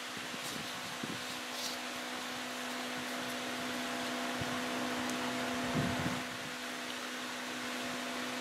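Steady machine hum with air rush and a low steady drone, typical of a running fan. A couple of soft low knocks about six seconds in.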